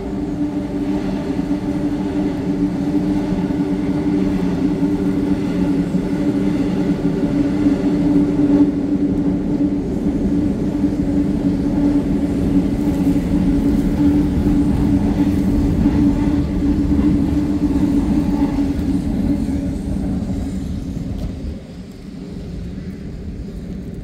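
A motor vehicle's engine running close by, a steady loud hum with rumble that drops away about three seconds before the end.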